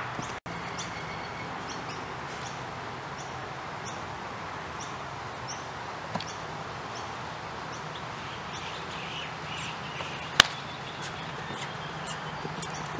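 Outdoor ambience: a steady hiss with small birds chirping every second or so. The sound drops out for a moment just after the start, and there is one sharp click about ten seconds in.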